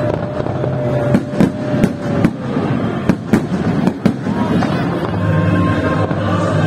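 Aerial fireworks shells bursting in a rapid, irregular series of sharp bangs and crackles. Music plays underneath, clearer from about five seconds in.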